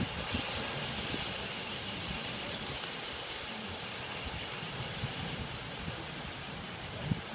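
Steady rain falling during a night thunderstorm, an even hiss, with a sharp close knock right at the start and a smaller one near the end.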